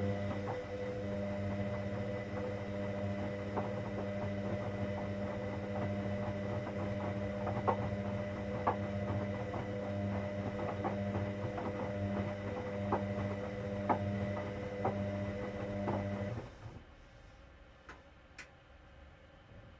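Hoover Dynamic Next washing machine giving off a steady electrical hum with scattered clicks and rattles over it, cutting off suddenly about sixteen seconds in.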